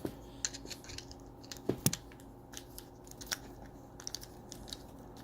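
Scattered small clicks and taps of handling a padlock and small tools, with two louder knocks a little under two seconds in, as the screw down the shackle hole that holds in the core and faceplate is worked on.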